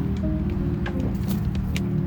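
Background music with a steady beat over sustained low notes and heavy bass.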